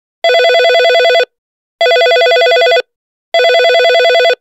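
Desk telephone ringing with an electronic trilling ring: three rings of about a second each, about half a second apart.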